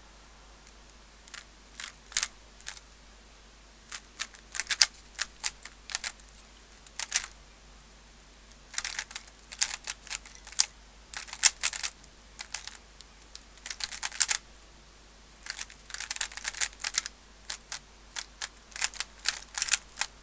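Plastic layers of a magnetic Z-cube 3x3 speedcube clicking as it is turned in quick bursts of moves with short pauses, each turn snapping into place, pulled by its magnets. The cube is still unlubricated and untensioned.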